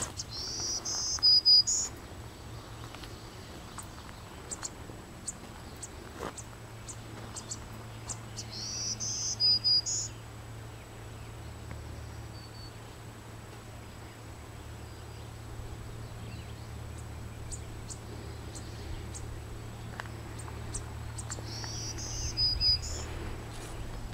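A high, buzzy animal call, each one rising and ending in a few short pulses, heard three times about ten seconds apart. A low steady hum runs under it.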